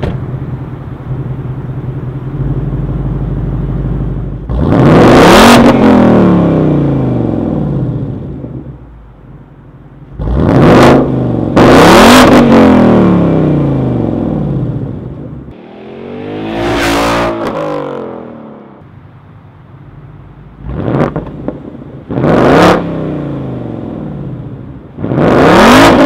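2018 Roush JackHammer Mustang's 5.0-litre V8 through its Roush Performance exhaust, idling at first and then revved hard about six times, each rev climbing steeply and falling back to idle.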